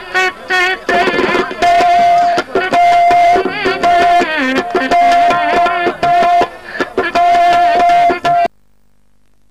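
Shehnai-style melody made by mouth mimicry into cupped hands: a reedy pitched line with wavering, sliding ornaments and a high note held again and again, over percussive beats. It cuts off abruptly about eight and a half seconds in.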